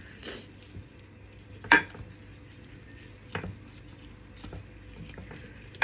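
A raw marinated whole chicken being handled and turned in a glass baking dish, with three sharp knocks against the dish, the loudest about two seconds in and one near the end.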